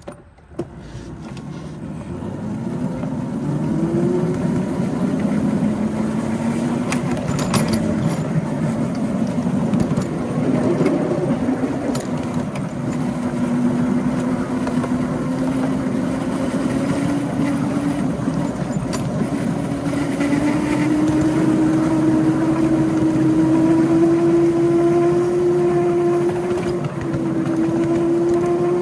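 Ride-on miniature railway locomotive running along the track, its drive giving a steady hum that grows louder over the first few seconds and then rises slowly in pitch as the train gathers speed.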